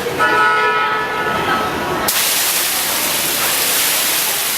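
A steady pitched sound with several overtones lasts about two seconds. Then the rush of water falling from a computer-controlled waterfall display starts abruptly and runs on as a steady, even spray noise.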